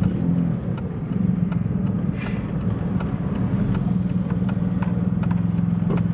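The VW Lupo 3L's 1.2 TDI three-cylinder diesel running steadily, heard from inside the cabin, with a brief whoosh about two seconds in.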